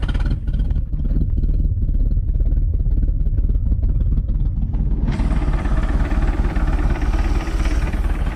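MerCruiser 140 hp 3.0-litre four-cylinder sterndrive engine running steadily just after starting, freshly tuned with new points, condenser, cap, rotor, plugs and wires. It sounds duller for about the first five seconds and then clearer.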